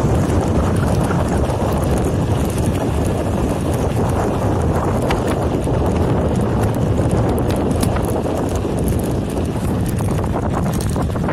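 Wind buffeting the microphone of a phone carried on a moving bicycle, a steady rushing noise, with many small clicks and rattles scattered through it.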